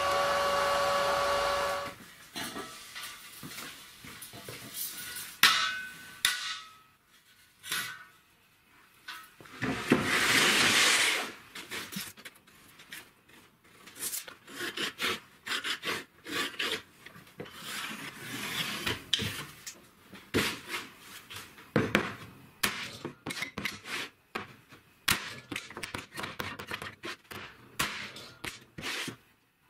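MIG welding on steel tube hissing and crackling, which stops abruptly about two seconds in. It is followed by clatter from handling plywood boards: many short knocks and scrapes, with a brief noisy burst about ten seconds in.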